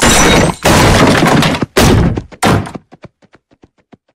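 A horse kicking apart wooden furniture: four loud, splintering crashes in quick succession, then small pieces clattering down and dying away over the last second or so.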